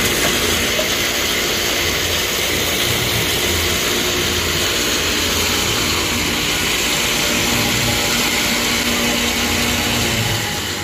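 Industrial bowl chopper running, its high-speed knives chopping meat in the rotating stainless-steel bowl: a loud, steady whirring noise with a steady hum beneath it.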